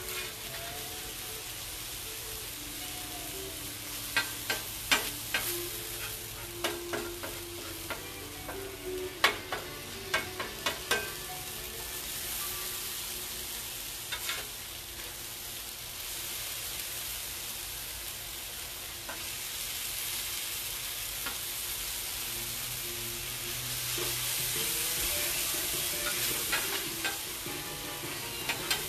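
Onions sizzling on the steel top of a Blackstone 28-inch flat-top griddle, a steady frying hiss. A metal spatula clicks and scrapes against the griddle several times, most often between about four and eleven seconds in.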